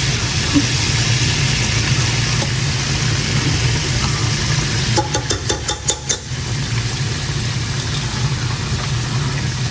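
Fish frying in hot oil: a steady sizzle over a low, steady hum, with a quick run of about eight sharp clicks or taps about five to six seconds in.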